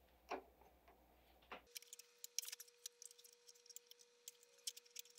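Faint, irregular light clicks and ticks of hands handling a drive belt and fitting it onto the pulleys of a DeWalt DW735 planer.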